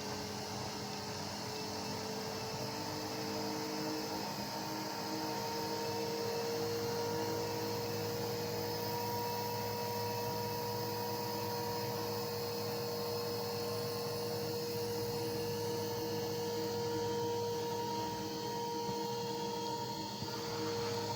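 WLtoys V950 electric RC helicopter running under power: a steady whine from its motor and rotor over a lower hum, the pitch stepping up slightly about four seconds in.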